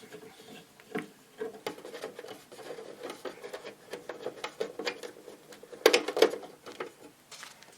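Scattered small clicks, taps and rubbing as a plastic-cased valve radio is handled and its case opened, with a louder clatter of knocks about six seconds in.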